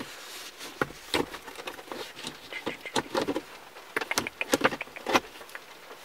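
Plastic trim clips of a car's shift boot surround being pressed into the center console by hand, a string of irregular clicks and small knocks as they snap into place, with several close together about four seconds in.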